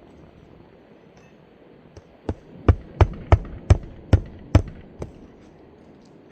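Nails being driven into roof shingles: eight sharp strikes at about two to three a second, with the first and last lighter than the rest.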